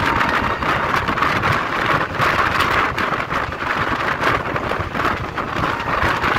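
Passenger train on the move: steady running noise of wheels on track and rushing air, with a continuous light clatter.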